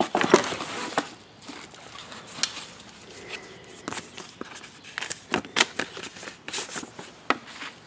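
Cardboard box and its shredded-paper and bubble-wrap packing rustling as the box is opened by hand, with scattered small clicks and taps as the flaps and a paper card are handled.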